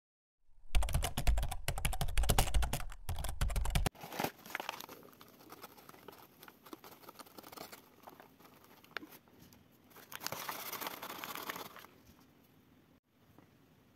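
Loud, dense crackling and rustling with a low rumble for about three seconds, cutting off abruptly. Then softer scattered rustles and clicks of things being handled on a table, with a longer patch of rustling near the end.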